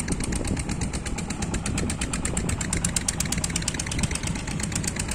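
Engine running steadily with a fast, even ticking beat.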